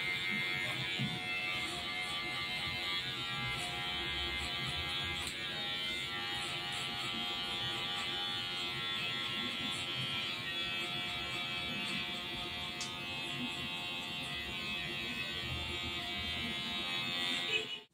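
Cordless electric hair clipper buzzing steadily as it cuts short hair close on the back and sides of the head, its blade lever pushed down to the half setting for blending a fade. The sound stops abruptly near the end.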